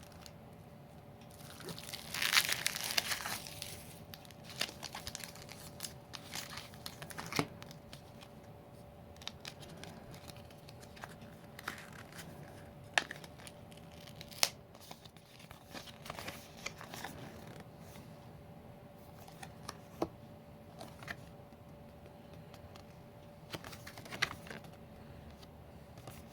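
Packaging tearing open about two seconds in, then scattered crinkling and light clicks as wrapper and contents are handled, over a faint steady hum.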